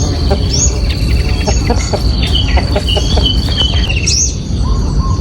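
Birds chirping with short rising calls over a steady high whine that stops about four seconds in, and a constant low rumble underneath.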